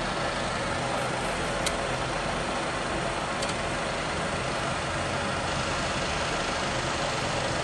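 G Vernier FV3 universal milling machine running steadily under power cross feed, its table and saddle traversing, with a couple of faint clicks about a second and a half and three and a half seconds in.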